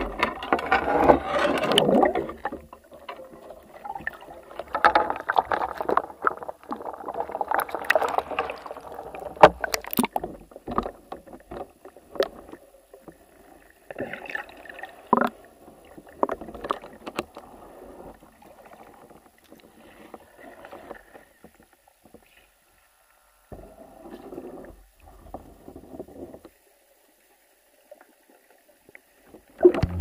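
Underwater water noise heard through an action camera's waterproof housing: irregular sloshing and gurgling surges with scattered sharp knocks and clicks. It is loudest in the first couple of seconds and thins out to stretches of near silence near the end.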